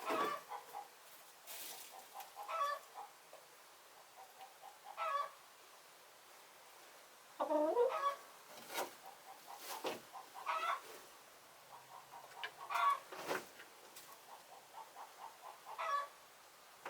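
Domestic hens clucking and murmuring, short calls coming every second or two, with a few sharp clicks among them.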